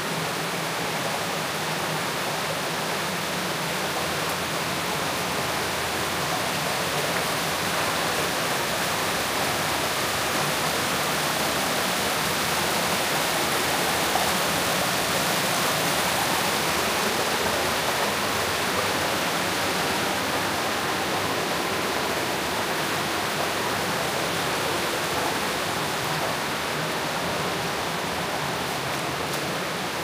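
Waterfall rushing in a steady roar of falling water, swelling a little louder around the middle.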